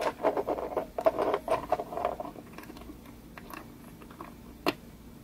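Small plastic clicks and scraping of a mechanical keyboard switch being handled and pushed into a switch tester base. They come thick and fast for the first two seconds or so, then thin out to a few scattered clicks, with one sharp click near the end.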